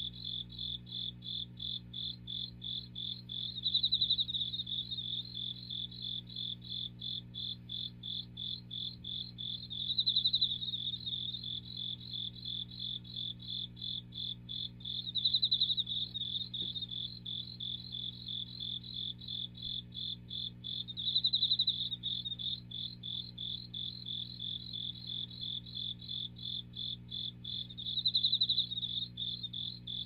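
A pet cricket chirping by rubbing its wings together: an even run of short high chirps, about three a second, with a louder, longer burst every five to six seconds.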